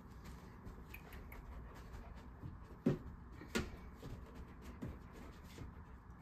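Dog's paws knocking onto a plastic bowl used as a perch: two dull knocks about three seconds in, the first the louder, among faint small clicks and rustles.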